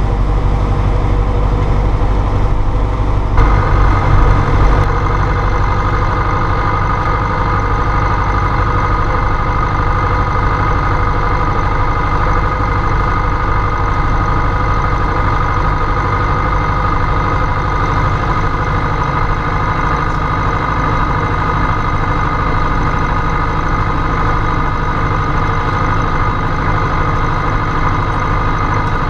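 International Harvester 844 XLA tractor's diesel engine running steadily as the tractor drives along, with a steady high whine over the engine. About three seconds in, the sound changes abruptly and a few loud knocks come over the next second or two.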